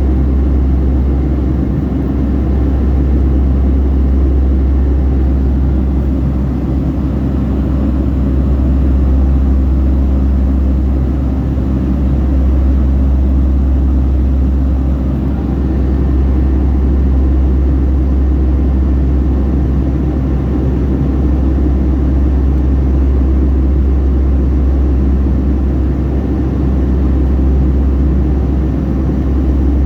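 Cabin noise of a Boeing 757-300 heard from a window seat: a steady, deep engine and airflow rumble with a low hum, swelling and easing slightly every few seconds.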